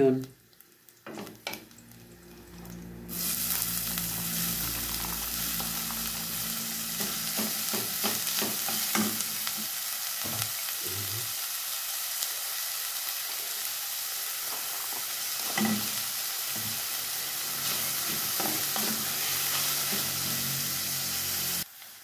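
Chopped onions and garlic sizzling in hot oil in a stainless steel pot, stirred with a wooden spoon that clicks against the pot now and then. The sizzle starts about three seconds in, as the onions hit the oil, and cuts off suddenly near the end.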